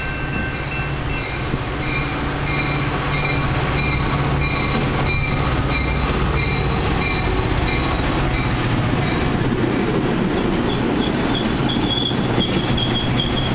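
Metra commuter train passing close by, a loud, steady rumble of wheels on rail with thin high squealing tones from the wheels and scattered clicks over the rail joints.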